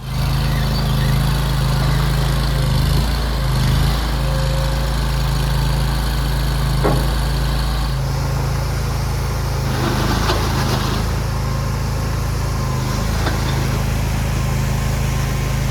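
Nuoman mini skid steer's small engine running steadily, its note dropping slightly about eight seconds in.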